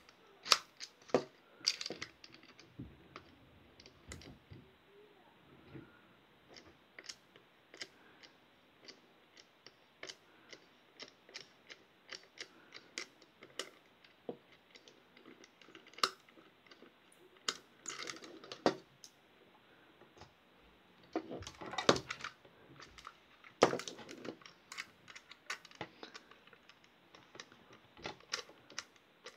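Irregular sharp clicks, taps and light scraping as the casing of a small automatic night light is handled and its lid is worked off, with a denser run of clicks a little past the middle.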